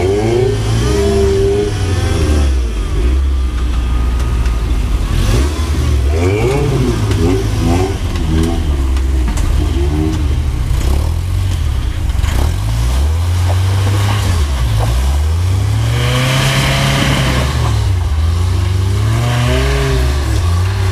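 A rock-crawling truck's engine revving up and falling back again and again as the rig crawls and lurches over boulders. Late on it revs harder, with a louder rush of noise.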